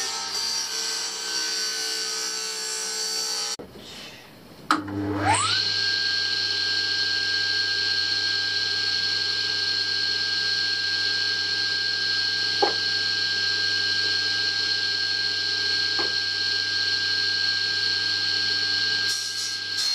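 Table saw motor starting up about five seconds in, its whine rising quickly to speed, then running steadily with a high whine over a low hum, with two brief ticks in the later part.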